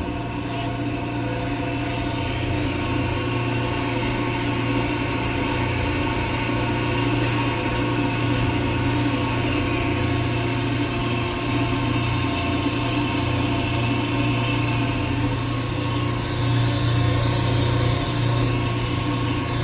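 Vacuum pump running steadily during a vacuum test of a Nutsche filter vessel, a constant low mechanical hum that gets slightly louder in the last few seconds.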